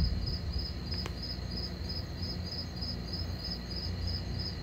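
Night insects chirping in a steady high-pitched rhythm, about three pulses a second, over a constant low rumble.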